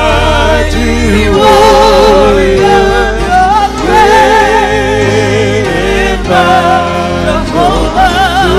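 Gospel singing: a woman's voice with wide vibrato and long held notes, over accompaniment with deep bass notes that change every second or so.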